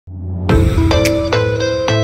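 Background music: a melody of sustained notes over a low bass, starting about half a second in.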